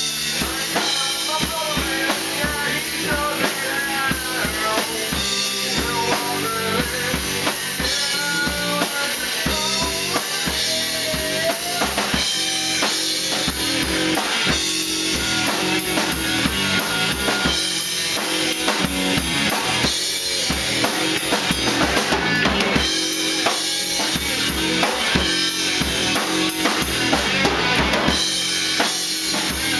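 Rock band playing live in a small room: a Yamaha drum kit with bass drum and snare driving the beat, under electric bass and electric guitar.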